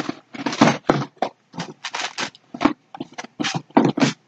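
Packaging rustling and crinkling in short, irregular bursts as hands rummage inside a cardboard shipping box.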